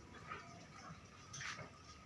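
Faint goat calls at a goat farm: one short bleat about a second and a half in over low background noise.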